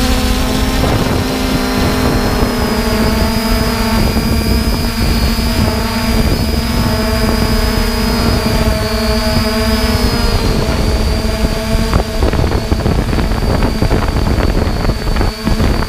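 3DR Iris+ quadcopter's electric motors and propellers whining steadily in flight, heard through the drone's onboard camera, with wind rushing over the microphone. From about eleven seconds in the sound turns choppy, with gusts buffeting the microphone.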